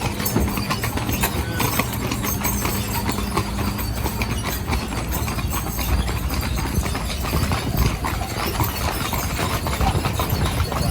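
Hooves of a horse team clip-clopping as they pull a stagecoach, mixed with the dense, irregular rattle of the moving coach.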